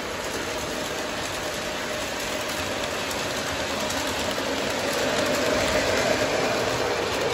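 Lionel model trains running on the layout track: a steady rolling rumble of wheels and motors with faint rail clicks, growing louder in the second half as a locomotive passes close by.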